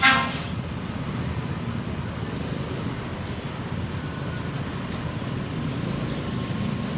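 A bus telolet musical horn ends a short note right at the start. After that comes a steady low rumble of vehicle engines and road traffic.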